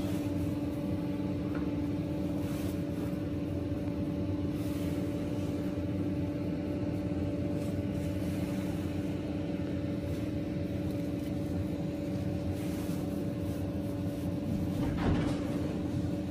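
Steady machine hum: a low drone with a constant, even tone that does not change, and a brief noise near the end.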